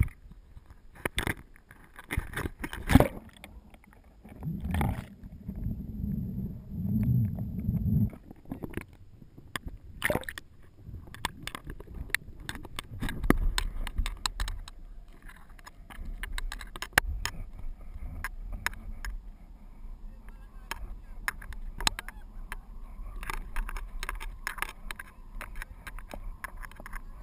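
Water sloshing and splashing around a kitesurfer standing in shallow water, with a low wind rumble on the action camera's microphone. Sharp knocks and clicks come in the first few seconds as the camera mount is handled.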